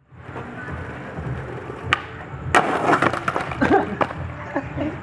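Skateboard wheels rolling on concrete, a sharp click about two seconds in, then a loud clattering crash of board and rider hitting the pavement as the trick fails, with scattered knocks after it as the board settles.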